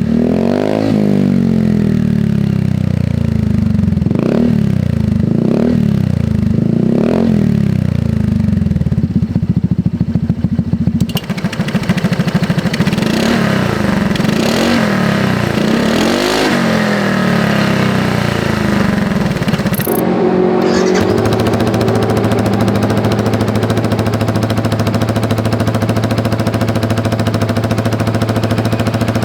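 Motorcycle engines through an EvoX ADB valved aftermarket exhaust. First an automatic scooter is revved in repeated blips with the exhaust valve fully open. About 20 s in, a sport motorcycle takes over, idling steadily with the valve closed.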